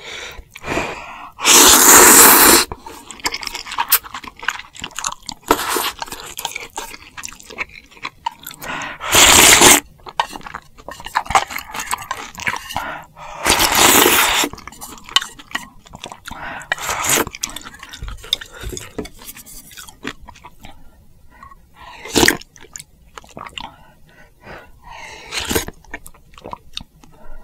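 Close-miked slurping of spicy ramen noodles and broth, three long loud slurps about 2, 9 and 14 seconds in, with chewing and small wet mouth clicks between.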